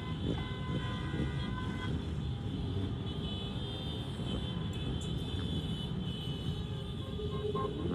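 Street motor traffic, with engines running as a steady rumble and some held higher tones in the first two seconds.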